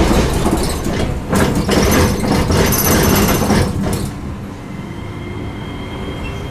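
Iyotetsu city tram's wheels clattering over a diamond crossing with a railway line: a quick rhythmic run of knocks, "tan-tatan, tatan-tatan". About four seconds in the knocks stop and the tram runs on more quietly over plain track.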